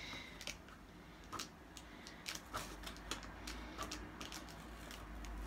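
Scissors working at the packing tape on a cardboard shipping box: a faint string of light, irregular clicks and scratches as the blades snip and scrape along the seam.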